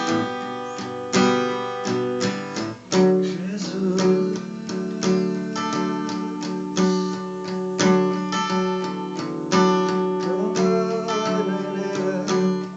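Strummed acoustic guitar playing a slow worship song, with a voice singing and holding the word "Jesus".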